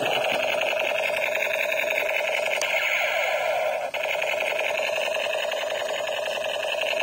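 Battery-powered AK-868 toy gun sounding its electronic firing effect through its small speaker: a continuous, fast buzzing rattle of shots with a steady electronic tone. It breaks off for a moment about four seconds in and starts again.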